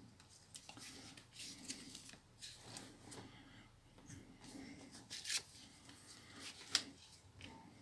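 Faint plastic clicks and rubbing from a Nokia 5300 XpressMusic slider phone being handled and closed up, its back cover fitted and slider worked, with two sharper clicks about five and a half and seven seconds in.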